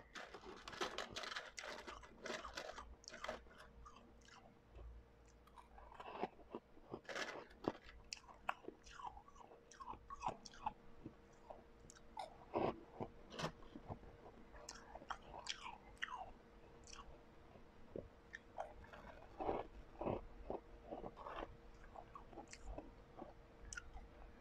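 Close-up crunching and chewing of refrozen blended ice: a long run of sharp, irregular crunches, coming in clusters with short pauses between bites.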